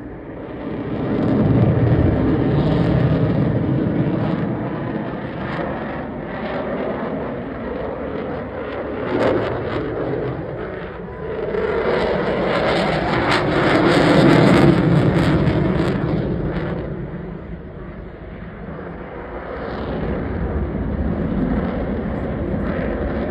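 Eurofighter Typhoon jet fighter's twin Eurojet engines roaring in a low display pass. The roar swells and fades as the jet passes, loudest about two seconds in and again around fourteen seconds, when a high hiss rides on top.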